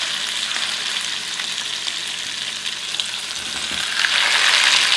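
Ribeye steaks sizzling in hot olive oil in a frying pan on a high burner, a steady hissing sizzle that grows louder about four seconds in as a second steak is laid into the pan.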